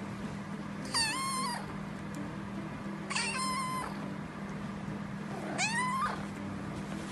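A cat meowing three times, each call short and high-pitched, the last one rising in pitch. A steady low hum runs underneath.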